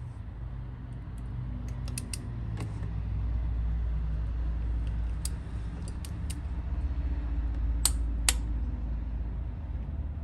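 Hand tools clicking and clinking against metal, a dozen or so sharp separate clicks, over a steady low hum.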